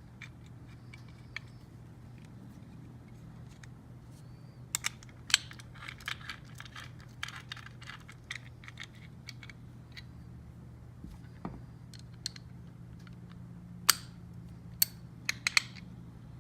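Scattered small metallic clicks and clinks of hand tools and hardware as a bolt is put back into a motorcycle turn-signal mount, with a cluster of sharper ticks in the last few seconds, over a faint low steady hum.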